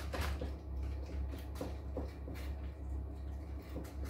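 A spatula scraping and tapping as it spreads thick fruit-cake batter in a paper-lined cake tin: a few soft, short strokes over a steady low hum.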